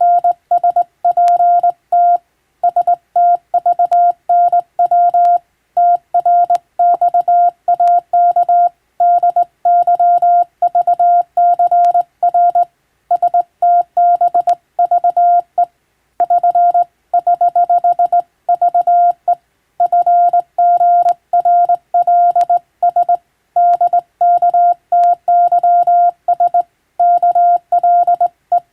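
Morse code (CW): a single steady beep keyed on and off in short dots and longer dashes, in a fast continuous stream of characters with brief pauses between words, as in radiotelegraph sending practice of English-letter telegrams.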